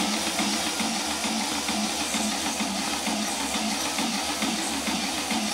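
Fischertechnik pneumatic robot arm's small electric motors and compressor running: a steady mechanical hiss over a low, regular pulsing.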